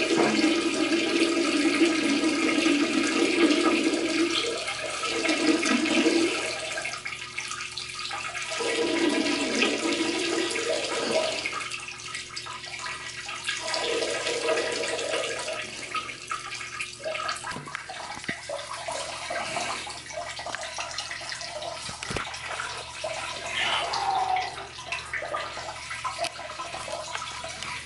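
Water rushing in a public restroom's plumbing, such as a toilet flushing or a tap running. It is loud and uneven, swelling and fading in waves over the first fifteen seconds or so, then settling to a lower, steadier rush.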